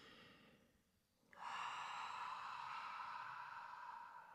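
A woman's long, audible releasing breath out through the mouth, a sigh that starts suddenly about a second in and fades over about three seconds.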